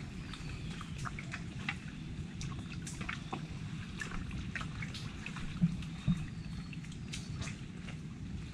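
Wet squelching and dripping of mud and water as hands dig in the mud for lokan clams, with scattered small clicks and two dull thumps half a second apart a little past the middle.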